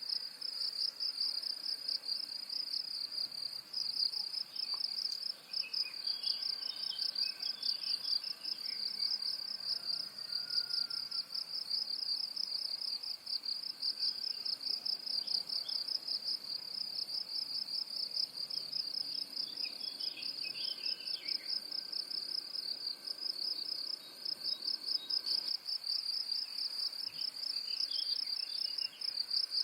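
An insect's high trill, continuous and in quick even pulses, with faint short bird chirps three times: about five seconds in, around twenty seconds, and near the end.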